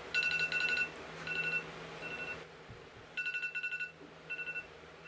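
Electronic wake-up alarm beeping in groups of rapid, high, two-pitched beeps: loud bursts at the start and again about three seconds in, with shorter, quieter groups between.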